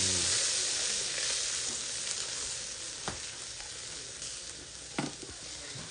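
Tare-basted chicken wings sizzling over charcoal on a shichirin grill. The hiss is strongest at the start and dies down slowly, with two light clicks about three and five seconds in.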